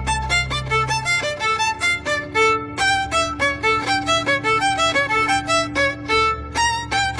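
Violin music: a fast run of short notes, about four to five a second, over a sustained low drone.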